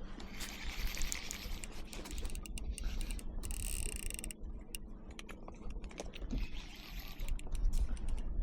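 Casting reel clicking and ratcheting in quick, irregular runs while a hooked fish is being fought, with a steady low rumble underneath.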